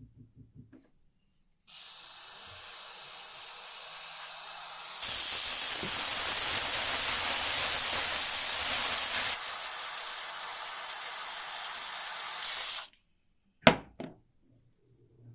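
Aerosol spray can: a short rattle of the can at the start, then one continuous spraying hiss of about eleven seconds that gets louder partway through and eases again. Two sharp knocks follow near the end.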